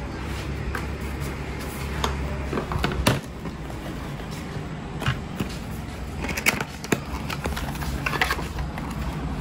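Handling noises as a laptop is slid out of its fabric sleeve and moved about on a glass counter: scraping and rustling with a few light knocks, the clearest about three seconds in and again around five and seven seconds, over a steady low hum.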